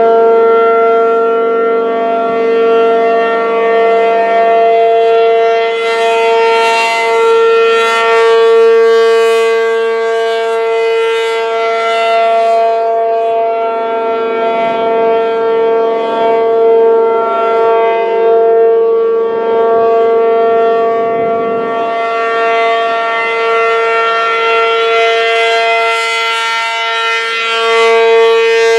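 Federal Signal P-50 outdoor warning siren running on continuously at full, steady pitch, its sound swelling and fading every few seconds. It is stuck on and will not shut down, a fault assumed to be caused by a welded relay in its controls.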